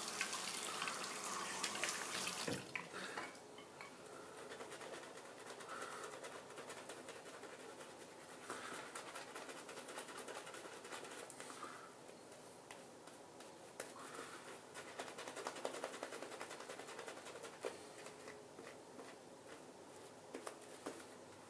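A bathroom tap runs for about the first two and a half seconds, then is shut off with a click. After that a shaving brush swirls lather over a stubbly face, a soft bristly swishing that comes in short spurts.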